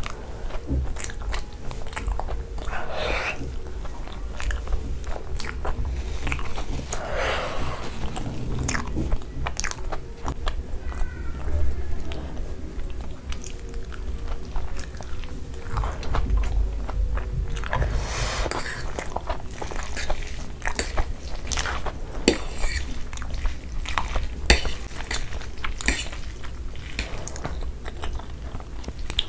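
Close-miked chewing and biting of a large mouthful of food, full of short sharp mouth clicks and smacks.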